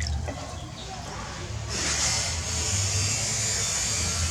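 A steady hiss that sets in suddenly a little under halfway through and holds, over a low hum.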